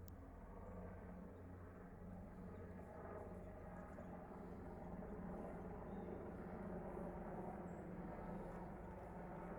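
Aircraft flying high overhead, heard but not seen: a steady, distant rumble.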